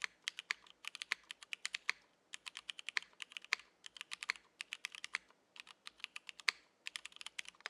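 Typing on a Keycult No.2/65 mechanical keyboard with vintage Cherry MX Black linear switches, a carbon-fibre plate and GMK keycaps. Quick runs of key clacks come in bursts with short pauses between them, and they stop abruptly at the end.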